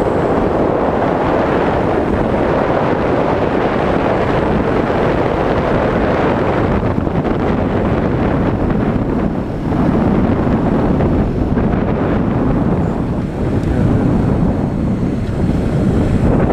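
Wind rushing and buffeting over the microphone of a moving Yamaha Serow 225 motorcycle, with the bike's running engine underneath. The noise dips briefly about halfway through.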